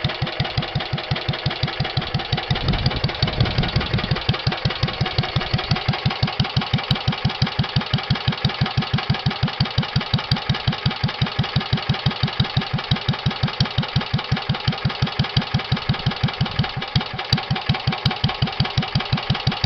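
Old 1940s Onan air-cooled utility engine idling nice and slow, a steady, even chugging beat of about five pulses a second.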